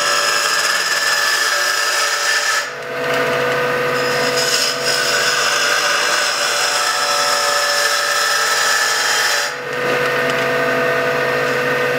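Wood lathe spinning a walnut rolling-pin blank while a lathe duplicator's cutter, steered by a stylus along a template, shaves it down: a steady cutting hiss over the lathe's steady whine. The cut eases off briefly about three seconds in and again near ten seconds.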